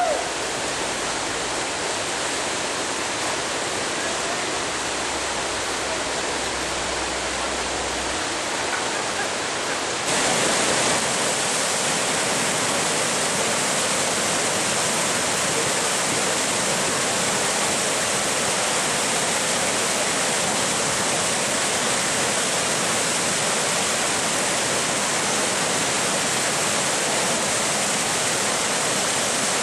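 Whitewater rapids rushing: a steady, loud noise of foaming, tumbling water that gets a little louder about ten seconds in.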